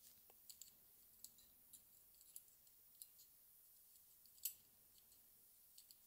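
Faint, scattered light clicks and ticks over near silence, about a dozen of them, the sharpest about four and a half seconds in: small parts being handled on the bench.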